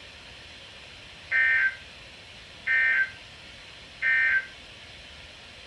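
Three short bursts of warbling digital data tones from a weather radio, about 1.4 seconds apart: the EAS/SAME audio code. Bursts this short are typical of the end-of-message code that closes a NOAA Weather Radio weekly test alert.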